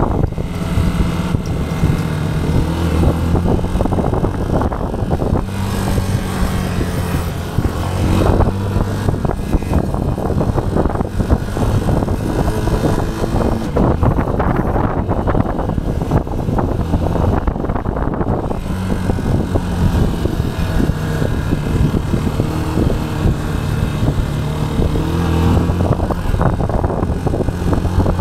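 Motorcycle engine running while riding, its note shifting up and down with the throttle, mixed with wind rushing over the microphone.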